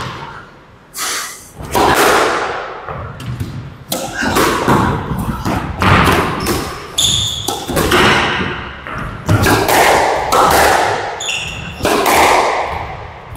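Squash rally: the ball is struck by rackets and smacks off the court walls in a string of sharp, echoing hits, about one every half second to a second, with a couple of brief high squeaks of court shoes.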